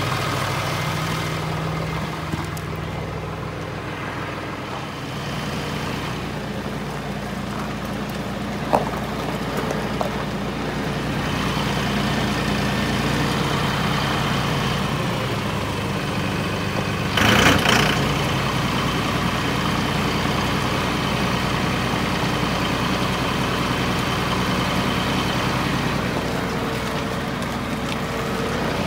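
Massey Ferguson tractor's diesel engine running steadily while the tractor drives, heard from the seat, with a brief louder burst of noise about 17 seconds in.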